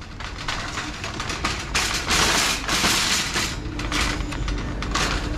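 Plastic shopping cart rattling as it is pushed across a hard store floor, loudest in the middle stretch and again briefly near the end.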